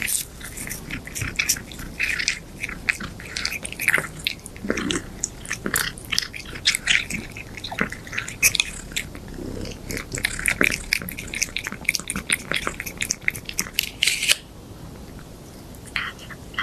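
A cat chewing and crunching crisp treats: rapid, irregular crunches and smacks, with a short pause near the end before the chewing resumes.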